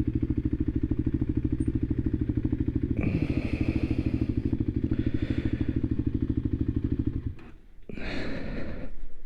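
Voge 300 Rally's single-cylinder engine idling with an even beat, then switched off about seven seconds in.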